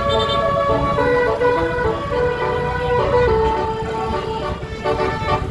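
Tour bus 'telolet' musical air horns playing a tune of held notes that step from pitch to pitch, over a low vehicle rumble.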